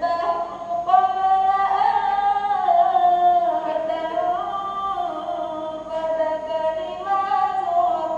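A woman's solo voice singing unaccompanied, in long held notes that bend and turn in pitch.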